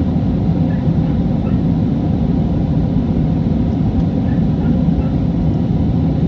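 Steady cabin noise inside an Airbus A320 climbing after takeoff: the jet engines and rushing air make a loud, even, deep rumble with no breaks.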